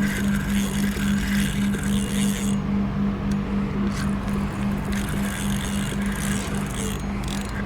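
An engine idling steadily, a low throbbing hum pulsing about four times a second.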